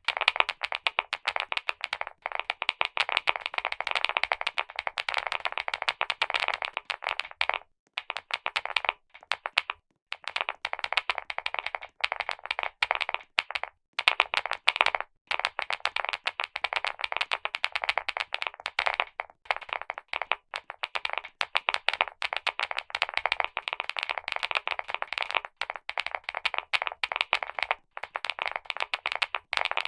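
Rapid, dense clicking, many sharp clicks a second, broken by brief pauses every few seconds.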